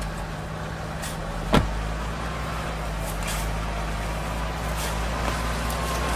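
Toyota Land Cruiser's engine running steadily at low revs, with one sharp knock about a second and a half in.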